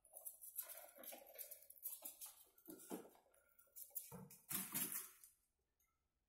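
Pet ferrets playing, scampering and scuffling on a laminate floor: irregular brief scrabbles and bumps, busiest about four to five seconds in, then falling quiet.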